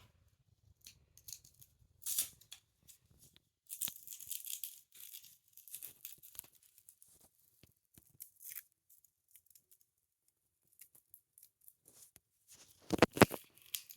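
Garlic cloves being peeled by hand: the papery skins crackle and rustle in short, scattered bursts, with a few louder knocks near the end.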